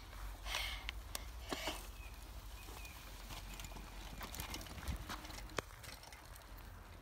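Faint, scattered footsteps and scuffs on a dirt forest trail, with a few sharp clicks, as a mountain bike rolls away over the ground.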